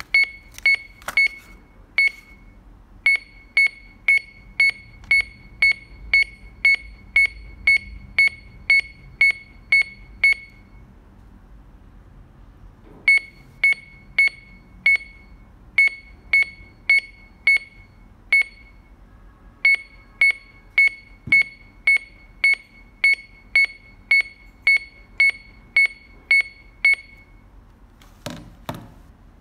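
HC-204 omnidirectional 2D barcode scanner beeping to confirm each successful read: short, identical high-pitched beeps about two a second, in runs with pauses between. A few knocks near the end.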